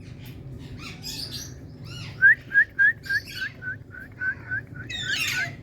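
Indian ringneck parakeet calling: a quick run of about a dozen short, identical chirps, about four a second, loudest at the first few. Harsher, scratchy chatter comes before the run and again just before it ends.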